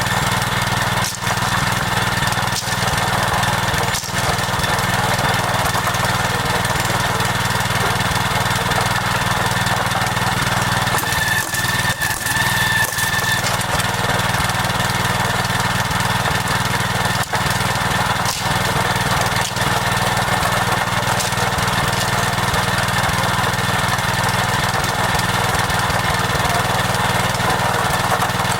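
A small engine running steadily at a constant speed, with a thin high whine over its drone.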